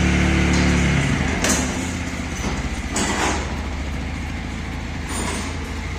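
TVS Apache RTR 160 4V single-cylinder motorcycle engine running after a piston replacement, dropping from a louder, higher run to a quieter steady idle about a second in, with a few sharp clicks over it; no knocking is evident, and the mechanic finds no abnormal sound.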